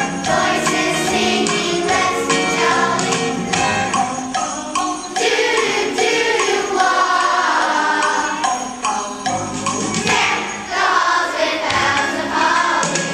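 Children's choir singing a Christmas song with musical accompaniment.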